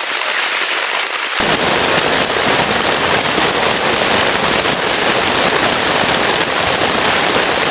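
Heavy downpour drumming on a tent, a dense crackling hiss. About a second and a half in it turns fuller and louder, then holds steady.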